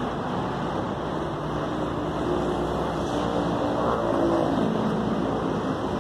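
Steady street traffic noise, with a faint engine tone through the middle seconds that drops lower near the end.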